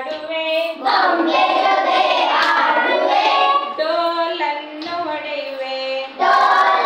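A group of young children singing a Kannada action song together in unison, getting louder again about six seconds in.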